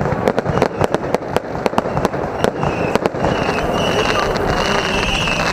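Aerial fireworks going off in a rapid run of sharp crackling bangs for about three seconds. The bangs then give way to a steady hiss with a high sustained tone.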